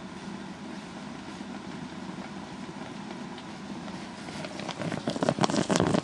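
Water boiling hard in a small homemade electric boiler fed about 780–800 watts: a steady low rushing noise that breaks, about four and a half seconds in, into loud, rapid crackling and sputtering as the boil builds.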